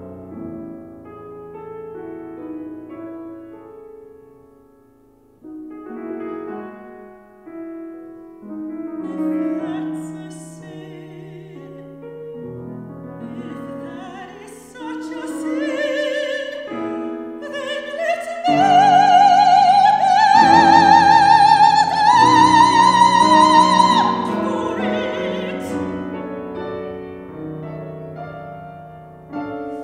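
Operatic soprano singing with Steinway grand piano accompaniment. The piano plays alone at first; the voice then enters with a wide vibrato, climbs to a loud sustained high note through the middle, and eases off over the piano near the end.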